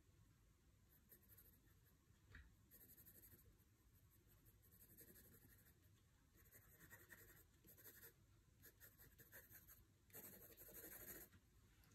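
Faint scratching of a pencil drawing and shading on sketchbook paper, in a series of short strokes, the longest and loudest near the end.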